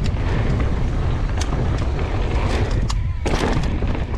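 Downhill mountain bike running over a dirt trail, with wind buffeting the microphone as a steady low rumble. Several sharp knocks and rattles come from the bike over rough ground.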